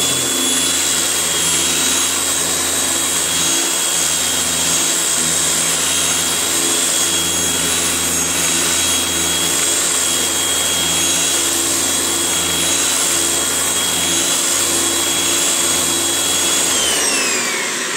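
A large, older electric power sander running steadily with a high motor whine, then switched off near the end, its pitch falling as it winds down.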